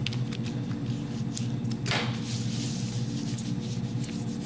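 Hand rubbing printing paper down over an inked collagraph plate to transfer the print: papery rubbing with a louder swipe about two seconds in, over a steady low hum.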